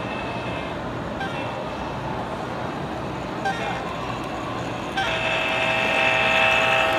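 A model diesel locomotive's onboard sound system blows a long horn as the locomotive passes, several notes at once, starting abruptly about five seconds in. Steady background hum and crowd chatter throughout.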